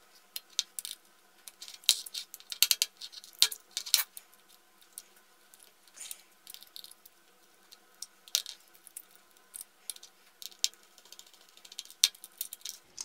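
Irregular light clicks and metallic taps as the small parts of an opened laptop hard drive are handled: the platters, spacer ring and casing knocking against each other. A few louder clicks come in the first four seconds.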